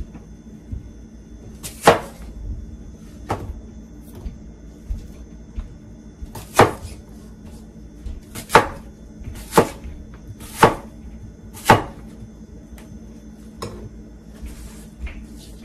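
Large high-carbon steel butcher knife chopping an apple on a cutting board: a series of sharp knocks as the blade comes down onto the board, at uneven intervals with fainter taps between. The loudest knocks fall about a second apart in the second half.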